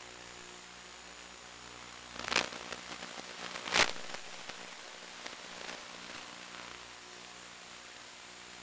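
Steady hiss with a faint hum, broken by two loud crackling pops about two and a half and four seconds in, with lighter crackles after them: static on the audio of an analog FPV video recording.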